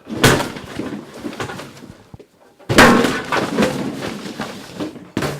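Two loud crashes about two and a half seconds apart, each trailing off into a second or two of clattering and rattling, with a short knock near the end: a person crashing into furniture and household objects, a water cooler among what falls.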